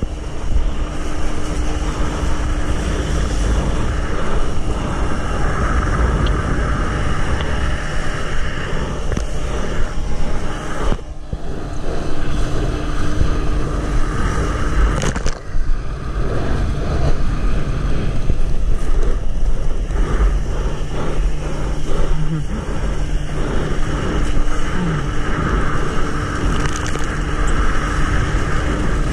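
Water rushing and wind on the microphone while riding a small boat's wake at speed, over the steady drone of the jon boat's outboard motor. The sound drops out briefly twice near the middle.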